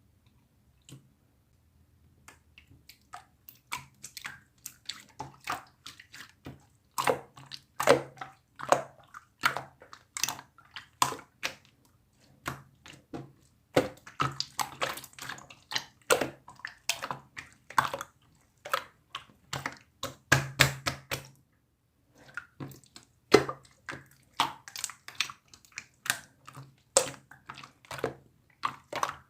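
Clear slime being squished and worked by hand, making irregular wet clicks and pops, with a couple of short pauses.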